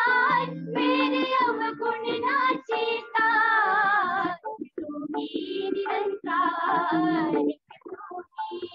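Devotional song: a voice singing a wavering melody over musical accompaniment, with a short break about halfway and sparser phrases near the end.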